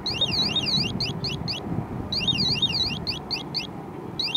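Home-made water-tank overflow alarm sounding with its probe in the water, which signals that the water has reached the full level. Its small electronic siren cycles through warbling high sweeps and then a run of quick rising chirps, repeating about every two seconds, and stops near the end.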